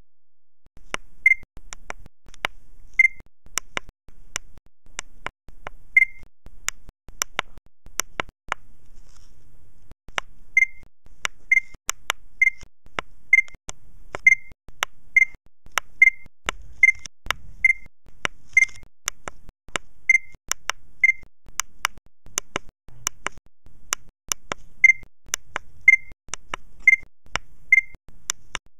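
Short electronic beeps at one pitch, each with a sharp click, repeating about once a second with more clicks in between. The beeps pause twice. The sound comes in short chunks with brief dropouts between them.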